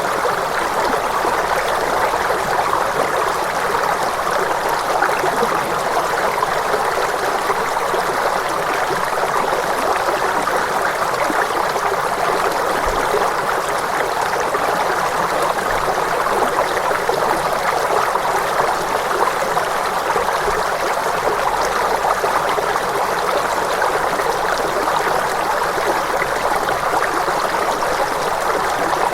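Steady running water, like a stream flowing, an even rushing noise that does not change, with no bells, bowls or tones over it.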